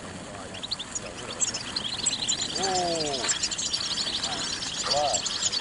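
A flock of European goldfinches twittering, with many quick high chirps overlapping. The chirping starts about a second in and grows denser as the birds are let out of their cage. A person's voice calls out briefly about halfway.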